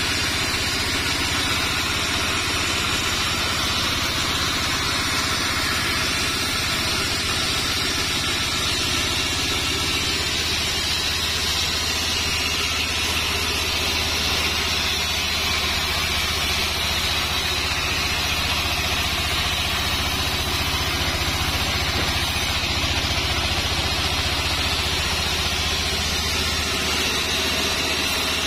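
Sawmill band saw running steadily with its blade cutting lengthwise through a sengon log: a constant low machine hum under a dense hiss of the blade in the wood.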